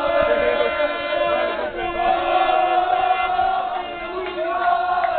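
A group of men chanting together loudly, a football fans' chant with long held notes.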